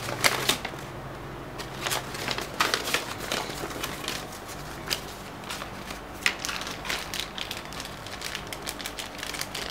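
Paper instruction sheets and a small plastic parts bag rustling and crinkling as they are handled, with many irregular crackles and light taps.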